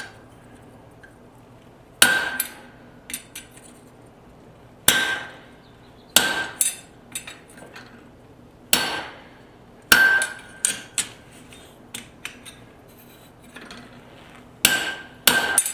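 Hammer blows on hot steel at the anvil during hand forging of tongs: about ten single strikes at irregular intervals, some in quick pairs, each with a short metallic ring.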